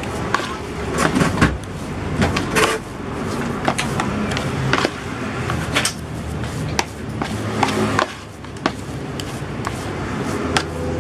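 A plastic scoop scraping and knocking against a plastic basin as moist fish-bait dough is mixed and pressed smooth, with irregular clicks and taps.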